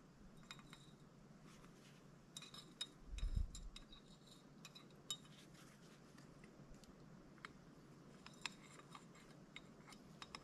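Faint, scattered metal clinks and ticks of a dog-proof raccoon trap being handled while it is baited, with a soft low thump about three seconds in.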